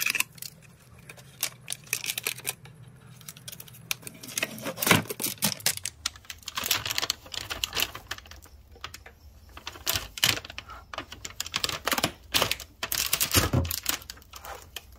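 Irregular crackling and clicking of plastic wrapping and tape being cut and pulled away from a lithium-ion e-bike battery pack, in quick clusters of sharp clicks.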